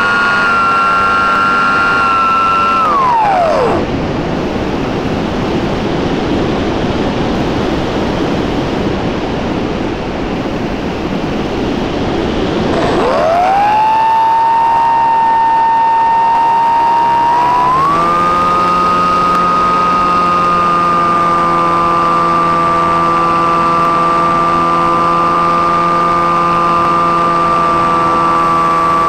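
Radio-controlled Cessna 337 model plane's motor and propeller, recorded on board: the steady whine drops away as the throttle is cut about three seconds in, leaving a rush of air. It rises again about thirteen seconds in, steps up to a higher, fuller pitch a few seconds later, and then holds steady.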